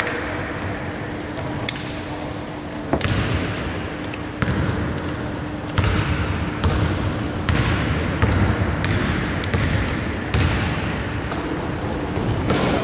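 A basketball being dribbled on a hardwood court, each bounce a sharp knock with an echo from the big, almost empty hall, with a few short sneaker squeaks on the floor.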